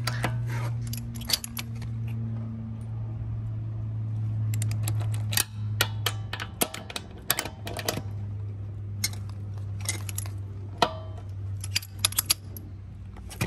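Torque wrench working on a car wheel's lug nuts: a scatter of sharp metallic clicks from about four seconds in, the wrench ratcheting and clicking as each nut is checked at 100 foot-pounds. A steady low hum runs underneath.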